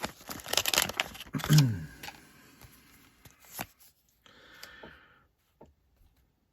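A pack of baseball cards being handled: quick clicks and rustles of card stock and wrapper, busiest in the first two seconds, with a brief hummed voice sound among them, then thinning to a few taps and a short rustle before going quiet.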